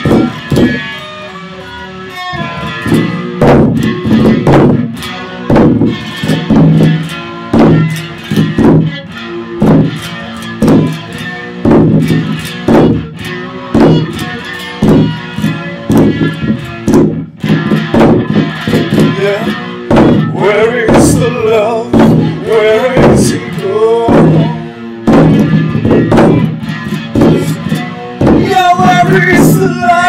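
Electric guitar and drum played live, a steady driving beat of struck chords and drum hits.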